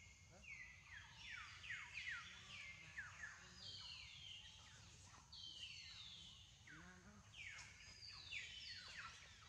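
Faint chorus of many overlapping high calls, each holding a note and then sliding downward, repeating without pause.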